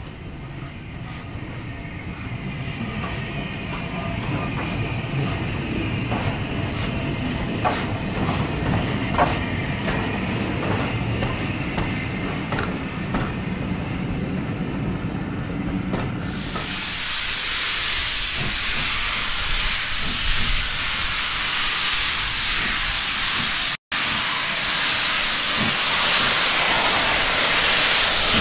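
Steam locomotive rolling on the rails, a low rumble with scattered clicks and knocks. A little past halfway, a loud, steady hiss of steam venting from a steam locomotive's open cylinder drain cocks takes over, broken by a momentary dropout near the end.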